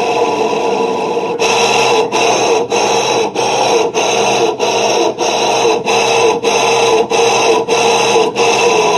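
Electrolux LTE12 washing machine running with a steady rough noise and a hum, broken by short, regular dips about every 0.6 s from about 1.4 s in. The uploader takes the noise for damaged motor bearings.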